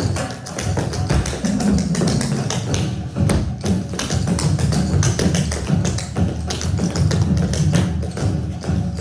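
Dense, rapid, irregular tapping over a steady low drone, heard as percussive music.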